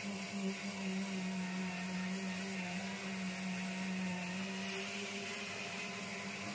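Random orbital sander running steadily against body filler on a car fender: a steady low hum with a hiss over it.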